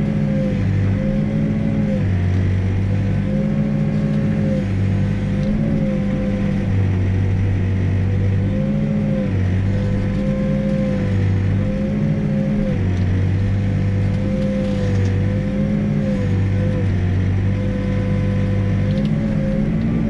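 Backhoe's diesel engine running steadily, heard from the operator's cab. Its pitch sags and recovers every second or two as the rear digging arm is worked.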